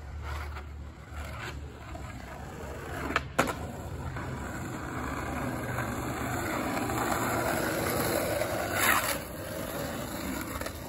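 Skateboard wheels rolling fast down an asphalt hill, a rushing rumble that grows louder as the rider comes toward the camera and peaks near the end. A sharp clack about three seconds in.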